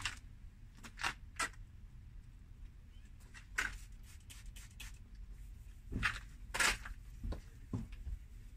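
Hand wet-sanding of an oxidised car headlight lens with a 2000-grit abrasive: about eight short scratchy strokes at irregular intervals, the loudest near the end, over a faint low hum.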